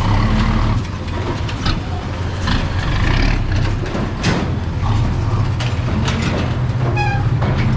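Heavy truck's diesel engine running steadily, with irregular mechanical clanks and rattles over it and a brief high squeal about seven seconds in.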